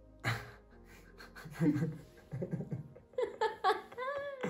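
A man and a woman laughing together in breathy bursts, the laughter quickening into rapid pulses near the end.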